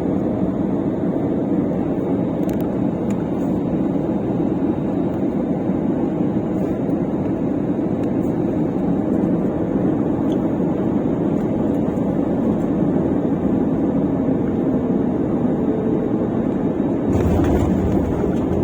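Steady engine and airflow noise heard from inside an airliner cabin on a night approach. Near the end the sound suddenly changes, with a stronger low rumble coming in.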